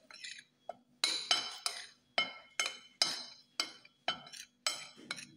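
Metal spoon clinking and scraping against a ceramic plate while stirring seasoned flour: repeated sharp clinks, about two or three a second, each with a brief ring.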